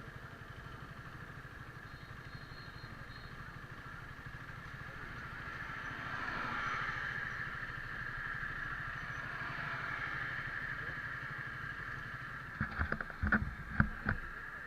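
Motorcycle engine running steadily with a low pulsing hum, with a broader rush of noise swelling in the middle. Several sharp knocks come near the end.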